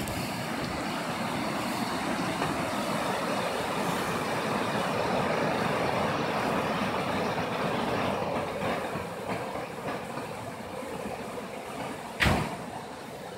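Fast, muddy floodwater rushing through a creek channel under a small bridge: a steady rushing noise. A brief thump about twelve seconds in.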